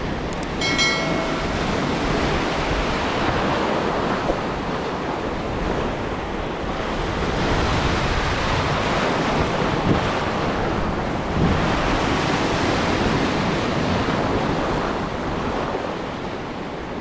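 Surf washing over shoreline rocks, with wind buffeting the microphone. About a second in, a short electronic chime with clicks, a subscribe-button sound effect.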